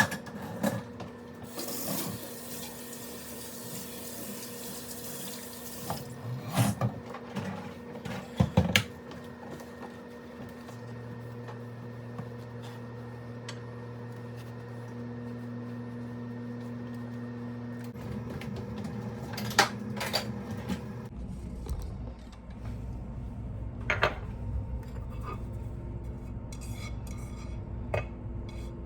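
Dishes and cutlery clattering as they are washed and handled at a kitchen sink, with a tap running for a few seconds near the start. A steady low hum runs underneath.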